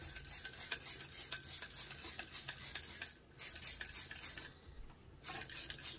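Spray bottle squirting soapy dish-soap water onto the inner tube and tyre in a string of short, quick spritzes, with rubbing and scraping on the rubber, pausing briefly twice.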